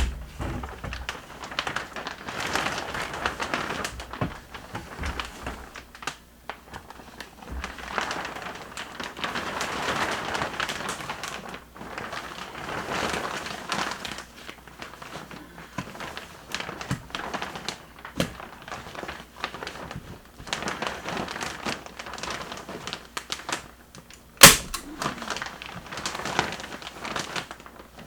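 Plastic vapor-barrier sheeting being handled and stretched against a wall, rustling and crinkling unevenly with scattered small clicks and knocks. A single sharp crack about 24 seconds in.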